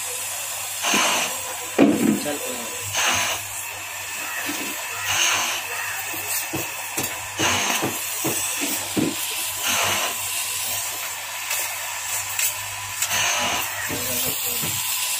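Blowtorch flame hissing as it heats a battery terminal mould, swelling into a louder whoosh about every two seconds, over a steady low hum and scattered small clicks.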